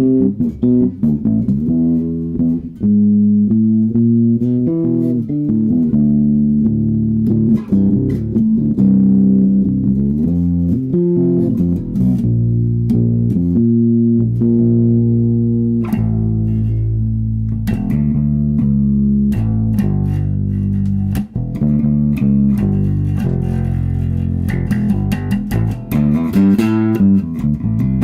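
Electric bass guitar played solo through an Orange OBC 112 bass cabinet driven by an Orange Terror Bass 500 head: a continuous run of plucked notes and melodic lines.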